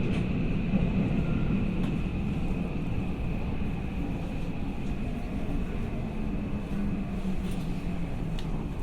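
Steady rumble of a train running, with a low hum and a thin high whine held throughout.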